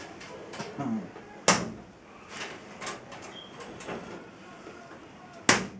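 Metal door of a smoking cabinet being shut and latched: a sharp knock about a second and a half in and another, the loudest, near the end, with lighter clicks between.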